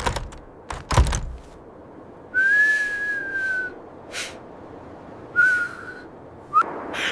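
Two thumps, then whistling: one long, slightly arched note followed by two short notes, the last rising.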